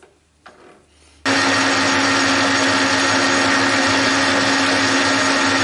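Metal lathe running, spinning a steel bar between centres driven by a dog for a light test cut. A few faint clicks come first, then a loud steady hum and whine start abruptly about a second in.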